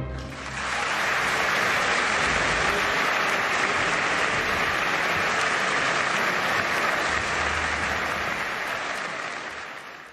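Crowd applauding: steady clapping that fades out near the end.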